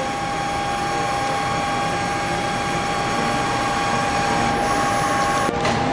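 A vertical machining center running. It makes a steady mechanical whir with a constant high whine, and a short hiss comes near the end.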